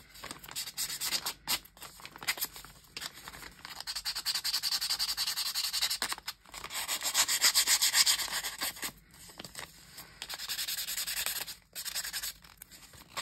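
Nail-file emery board rubbed rapidly back and forth along the folded edges of paper, scuffing and roughing them up to make the paper look old. The filing comes in runs of quick strokes with short pauses between.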